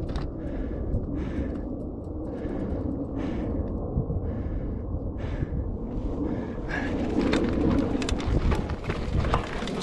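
Mountain bike on a rough dirt trail: a low rumble with short rhythmic hisses, nearly two a second, for the first six seconds or so. About seven seconds in, a clatter of clicks and rattles takes over as the bike rolls over rough ground.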